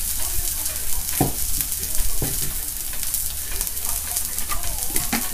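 Eggplant slices and sausages sizzling on a tabletop electric hot plate, a steady frying hiss with a few light clicks of utensils and dishes.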